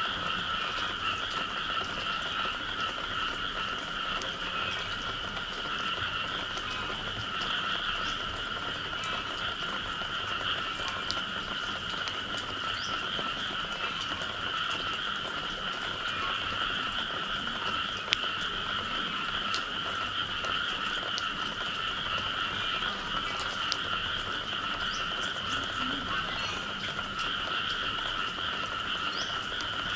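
Dense chorus of frogs calling steadily after rain, a continuous massed trilling. A few faint ticks come through it, and one sharper click a little past halfway.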